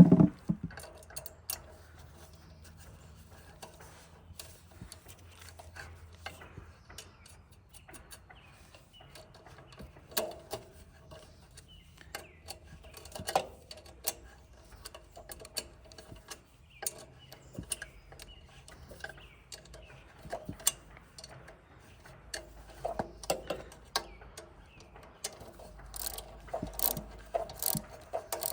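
Scattered clicks, knocks and light metallic clinks of small parts and hand tools being handled, with a single heavier thump right at the start.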